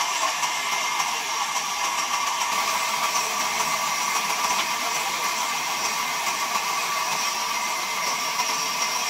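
Large sawmill band saw running steadily while a log is fed into the blade: a steady whine over a hiss.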